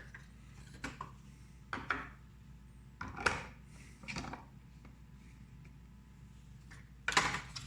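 Parts of a Presto MyJo single-cup coffee maker being handled and fitted together: about five short knocks and scraping rubs, the loudest a little after three seconds in and near the end.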